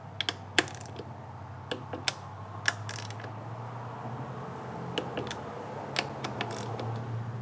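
Hand socket wrench ratcheting as the throttle body's 10 mm bolts are tightened onto an aluminium throttle body, giving scattered sharp clicks at irregular intervals over a low steady hum.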